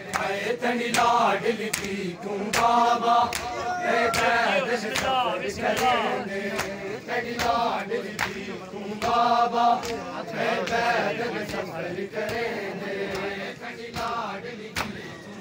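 A group of men chanting a Muharram noha (lament) in chorus, with sharp slaps of hands beating on chests (matam) heard repeatedly through the chant.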